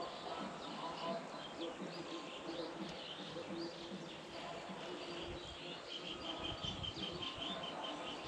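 Outdoor ambience with small birds chirping, including a quick run of even chirps about five seconds in, over a steady hiss.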